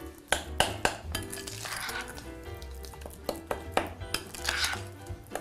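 Spoon stirring and scraping a thick ricotta and coconut mixture in a glass bowl, clinking sharply against the glass many times, with soft background music under it.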